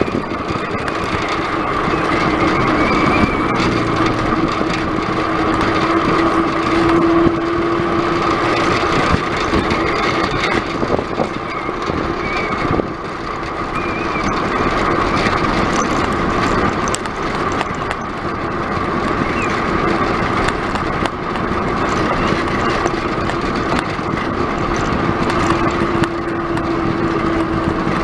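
Road bicycle riding along a paved road: steady rushing wind on the handlebar microphone with tyre noise on the tarmac, under a constant hum, and a lower tone that swells about a quarter of the way in and again near the end.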